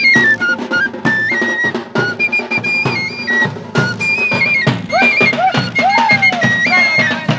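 Traditional flute and drum music: a high flute melody stepping between a few notes over a steady drum beat, about two beats a second.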